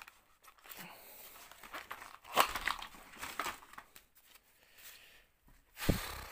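Handling noise as a jammed battery pack is worked out of a plastic RC car chassis: scattered plastic clicks and knocks amid crinkling of newspaper and bubble wrap, with a sharp knock about two seconds in and a heavier thud near the end.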